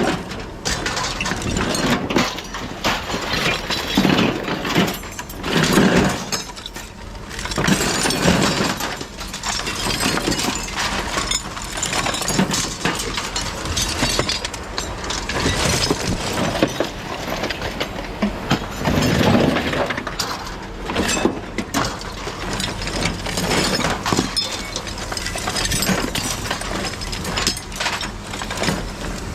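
Pieces of scrap metal clattering and clinking as they are handled and sorted, with many irregular knocks.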